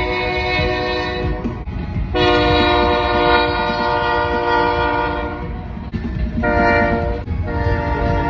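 Locomotive air horn sounding a chord in blasts: one ending about a second in, a long blast of about four seconds, a short one, then another long one starting near the end. Together this is the long-long-short-long grade-crossing signal, over the low rumble of the train.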